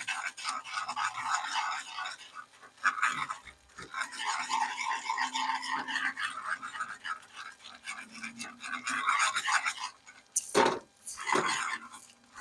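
A wire whisk scraping rapidly round a pan, stirring melted butter and light brown sugar into a sauce, with two sharper clinks of the whisk against the pan near the end.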